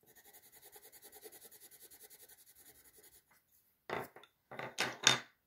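Coloured pencil scribbling quickly back and forth on paper while shading in a circle, about nine strokes a second; it stops about three seconds in. A few short, louder sounds follow near the end.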